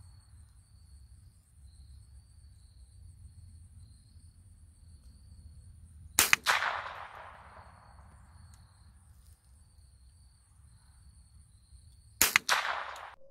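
Two single shots from a Walther Hammerli TAC R1 .22 LR semi-automatic rifle, about six seconds apart, each a sharp crack with a brief fading tail.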